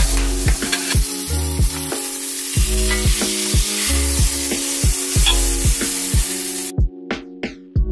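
Food sizzling in a frying pan, over background music with a steady beat. The sizzling cuts off suddenly near the end, leaving the music.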